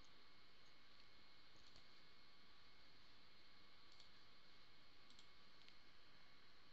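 Near silence: faint steady room hiss with a handful of soft computer mouse clicks spread through it.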